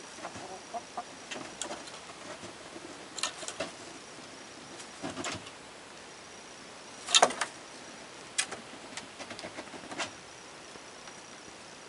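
Scattered light knocks and clicks at irregular intervals, the loudest about seven seconds in, with a faint thin high tone coming and going.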